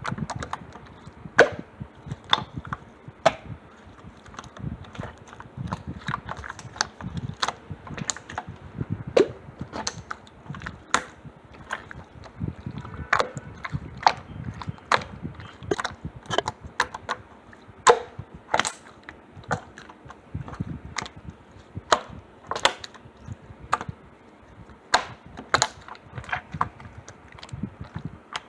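Hands squeezing, pressing and folding slime, making irregular sharp popping clicks, about one or two a second, over a soft squishing.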